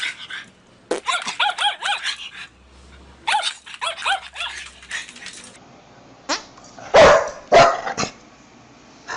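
A dog barking and yipping in two quick runs of short, high calls that rise and fall in pitch. After a cut to another clip come a few louder single sounds.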